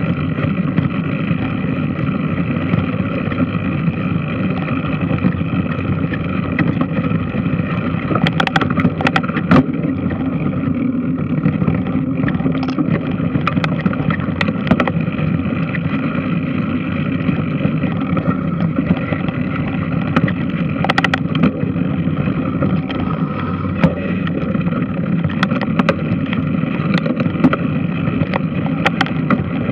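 Large washing machine running: a steady mechanical churning and rumble, with a few sharp clicks or knocks here and there.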